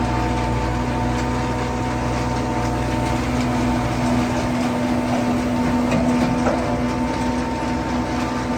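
Heavy farm machinery running steadily: an even engine hum with a constant whine over it, the deep part of the hum easing off about halfway through.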